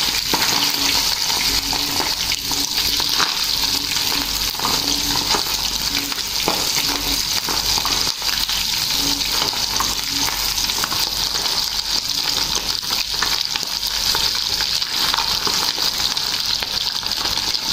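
Whole mullet frying in hot oil in a pan: a steady sizzle with scattered crackling pops, and a metal spoon now and then scraping and turning the fish.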